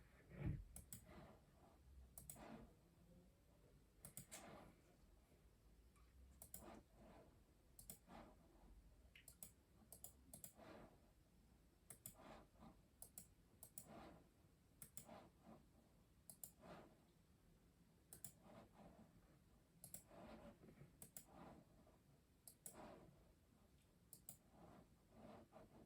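Faint typing on a custom mechanical keyboard: irregular runs of key clicks with short pauses between them. A single louder low thump comes about half a second in.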